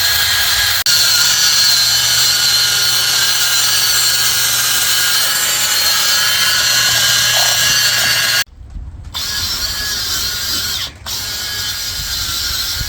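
A small power tool, drill-type, runs steadily with a constant whine. It stops abruptly about two-thirds of the way through, then runs again in two short bursts, while it cleans grime off an old gear change rod selector.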